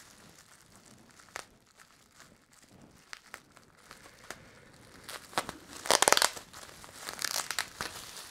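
Clear plastic bag crinkling as a toy piece is handled and unwrapped: scattered small clicks and rustles at first, then loud crinkling from about six seconds in.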